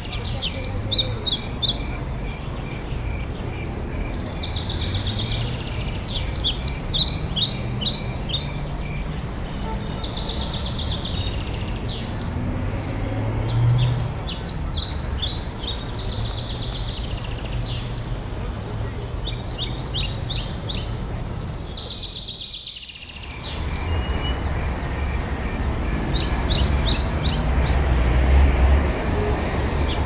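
Songbirds calling from bare treetops: a short, high phrase of quick notes comes again about every three seconds, with a steady run of thin repeated notes in the first few seconds. A low rumble sits underneath and grows louder near the end.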